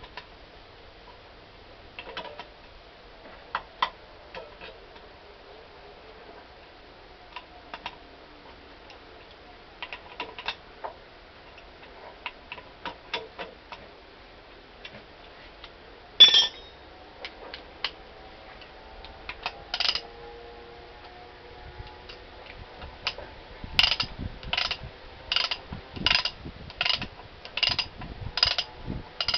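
Hand tools working on a car's front suspension strut: scattered metal clicks and clinks, then a single loud clank. Near the end, a steady series of ringing metallic strokes comes at about one every three-quarters of a second.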